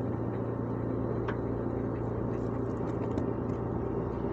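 Bulldozer engine running steadily, a constant low drone.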